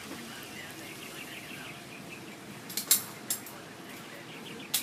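Several sharp metallic clicks as a handgun is handled and readied at the shooting stand: a quick pair about three seconds in, another a moment later, and one more near the end. Faint bird chirping runs underneath.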